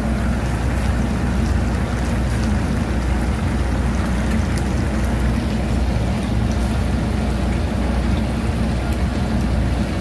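Chicken pieces sizzling and bubbling in teriyaki sauce in a frying pan, with scattered small pops. A steady low machinery hum runs underneath.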